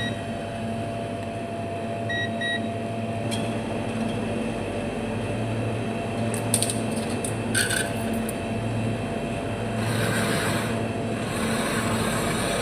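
Refrigerator compressor running with a steady low hum after a fresh refrigerant charge, with a short double beep about 2 seconds in and a few light clicks.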